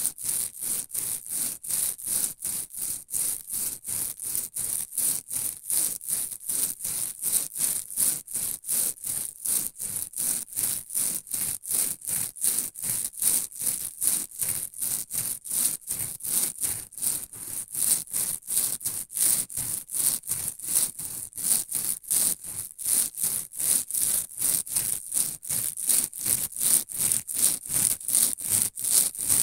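White polyethylene foam fruit-protector nets being rubbed against each other in quick, even back-and-forth strokes, about three a second, each stroke a high, scratchy rub.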